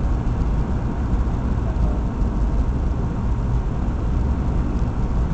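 Steady in-cabin noise of an airliner on final approach: a low, even rumble of engines and rushing airflow, with a faint steady tone riding over it.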